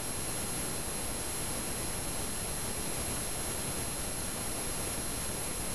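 Steady hissing noise, like static, with faint thin high-pitched tones held through it.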